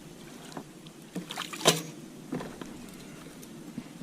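A few scattered knocks and clicks of gear being handled in a small fishing boat, the loudest about one and a half seconds in.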